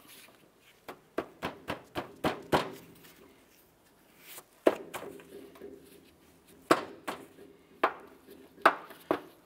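Sharp plastic clicks and snaps as a pry tool works the center pin and body of a plastic locking push-pin retainer out of a plastic inner fender liner. A quick run of clicks comes in the first few seconds, then single clicks about a second apart.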